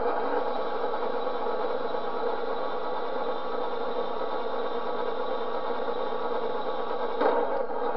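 Turret of a 1/16 radio-controlled Panther F tank traversing on ball bearings: its small electric traverse motor and gears give a steady mechanical whir. The whir grows louder and rougher briefly about seven seconds in.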